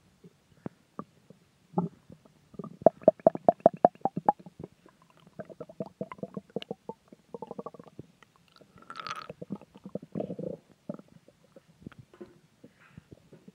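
Human stomach growling and gurgling in uneven bursts. The strongest is a fast run of bubbling pops about three to four seconds in, and a longer, hissier gurgle comes near the nine-second mark.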